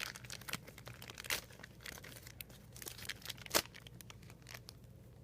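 Toy packaging being handled and pulled apart by hand, crinkling and crackling, with two sharper snaps about a second and a half in and near three and a half seconds in.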